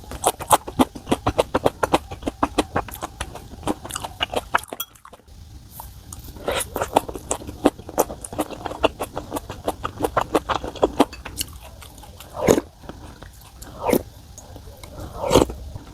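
A person chewing food close to the microphone: fast runs of small clicking mouth sounds that pause about five seconds in and start again, with a few longer, louder mouth sounds near the end.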